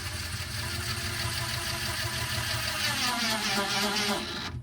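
A small electric motor running steadily, its pitch dipping and rising about three seconds in, then cutting off suddenly.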